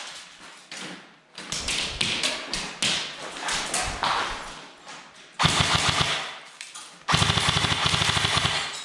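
Airsoft rifles firing: scattered shots in the first half, then two long full-auto bursts of rapid, evenly spaced shots, starting about five and seven seconds in.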